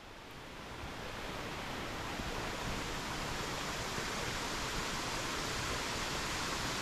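Steady rushing of running water, fading in over the first two seconds and then holding even.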